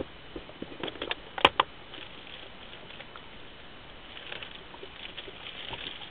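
Fishing gear being handled in a boat: a quick run of small clicks and knocks about a second in, the loudest a single sharp snap, then faint light crackling.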